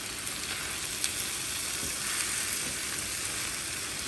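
Cooked lamb pieces frying dry in masala in a steel pan, sizzling steadily with small crackles while being stirred with a wooden spoon.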